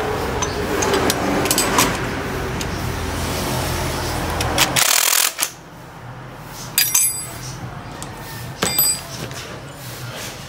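Metal tools clinking and tapping on the steel frame and motor mount of a homemade coconut grater, with two sharper ringing clinks in the second half. A steady low hum runs through the first half and stops after a brief loud rush about five seconds in.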